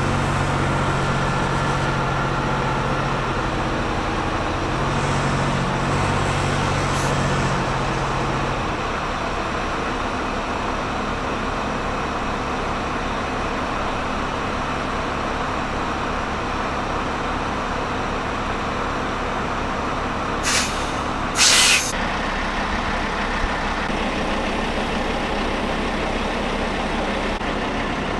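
Heavy diesel engine of a military container-handling lift vehicle running steadily under load as it holds a helicopter airframe, working harder for the first several seconds and then settling to a lower note. About two-thirds of the way through come two short sharp hisses of released air, the second longer and the loudest sound.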